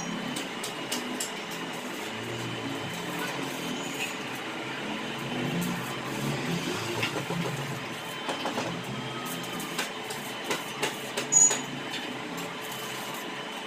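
Stick (arc) welding on steel bars: the arc gives a steady crackling hiss. In the second half come a number of short sharp ticks and knocks, one of them louder near the end.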